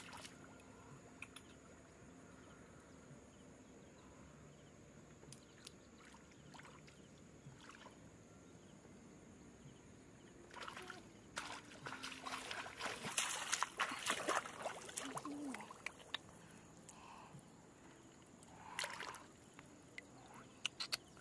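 Water sloshing and splashing in a dense cluster of bursts from about ten to sixteen seconds in, and once more briefly near the end, over a faint steady high tone.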